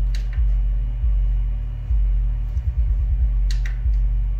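A 50 Hz test tone driven through a car audio amplifier during a power-clamp test, heard as a deep hum that cuts back in sharply about every second and fades a little between restarts, with a quick stuttering run of pulses about two and a half seconds in. Two brief clicks sound near the start and past the middle.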